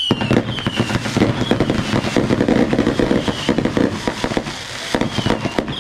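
Consumer fireworks finale of 200-gram cakes and Saturn missile batteries firing at once: a dense, unbroken string of rapid pops and crackling bursts. Whistles falling in pitch sound through it, a few faint ones early and a loud one at the end.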